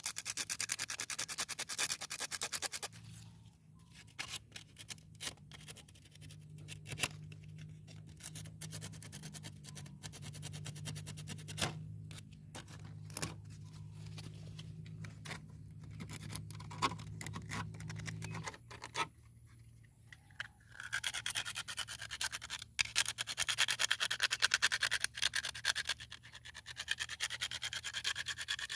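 Sandpaper rubbing on a rusted motorcycle battery terminal and lead to clean off corrosion: fast scratchy strokes at the start and again in the last third, with a quieter stretch of scattered handling clicks in between.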